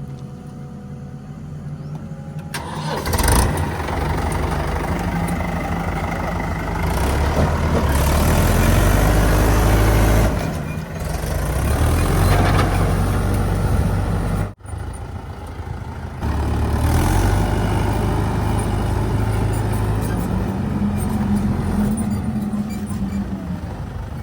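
Backhoe loader's diesel engine running under working load, revving up and easing off several times, with a sudden brief break about halfway through.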